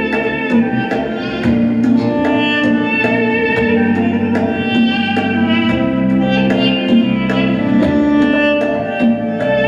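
Live instrumental music: a duduk carries a melody of sustained notes over keyboard chords, with congas struck in a steady rhythm.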